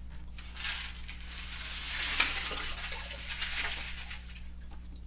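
Rinsed aquarium gravel poured into a water-filled glass tank: a hissing rush of gravel splashing in and sinking through the water, with a few clicks, starting about half a second in and fading out near four seconds.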